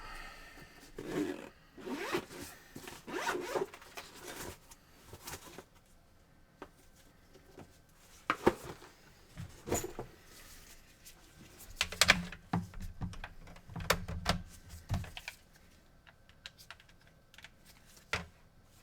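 Handling noises on a repair bench: rustling and scraping for the first few seconds, then a series of separate sharp clicks and knocks, with a brief low buzz under them about twelve seconds in.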